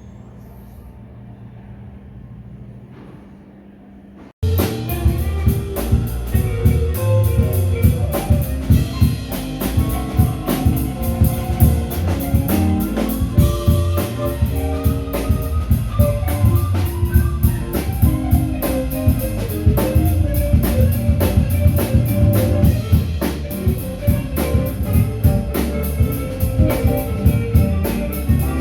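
A low steady hum, then about four seconds in, a sudden cut to loud rock music with a driving drum kit, bass and guitar, plausibly a live band.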